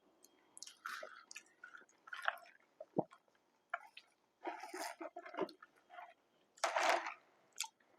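A person chewing food, in short irregular spells of mouth sounds with a sharp click about three seconds in.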